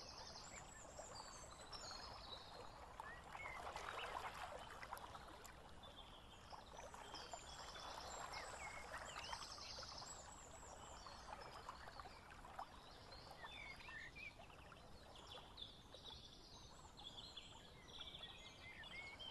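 Faint natural ambience: many short, high chirps and trills of small wild animals calling, some in quick pulsed runs, over a soft steady hiss.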